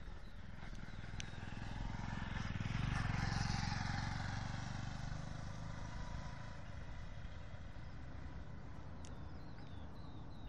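A motor vehicle passing by, its engine noise swelling to a peak about three seconds in and then slowly fading.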